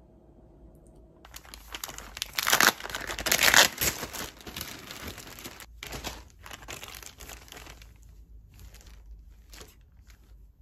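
Crinkling and rustling of something crinkly being handled, starting about a second in, loudest in two bursts around two and three and a half seconds in, then thinning to scattered rustles.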